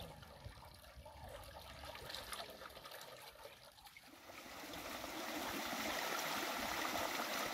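Tomato pulp poured from a plastic bucket into a wide metal pan, a soft trickle. About four seconds in, a small stream's running water takes over, a steady rush that is louder.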